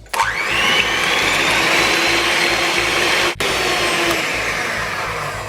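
Electric hand whisk running at speed, beating eggs and egg yolks until thick and creamy: a steady motor whine with the whirr of the beaters in the bowl. It spins up with a rising whine at the start and breaks off for a split second about three seconds in.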